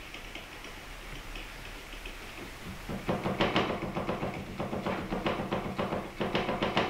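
Rapid, rhythmic knocking, several knocks a second, that starts about three seconds in after a low hiss: a stainless steel tube being knocked to pack thermite powder tight inside it.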